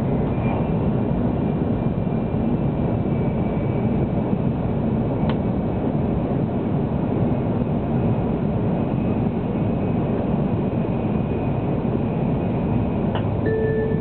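Cabin running noise of a 700 series Tokaido Shinkansen car at speed: a steady rumble and rush from wheels and air, with a faint high whine. There is a single click about five seconds in, and just before the end an onboard announcement chime starts.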